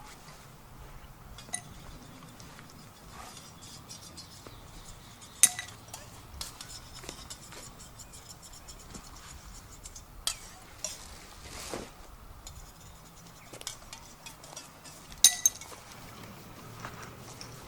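Sparse metallic clinks and knocks of metal gear being handled, a few of them sharp and ringing: one loud clink about five seconds in and a quick pair near the end.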